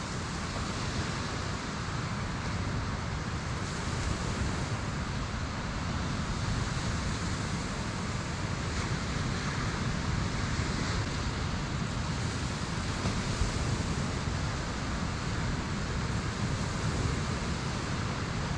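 Ocean surf breaking on a sandy beach, a steady rushing noise, with wind on the microphone.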